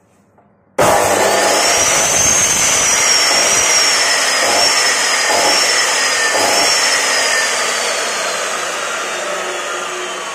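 Bosch GCO 220 2200-watt cut-off saw with a toothed multi-material blade, switched on about a second in: the motor comes up to full speed at once and runs free with no load, with a loud high whine. The whine slowly drops in pitch and the sound grows a little quieter over the last few seconds.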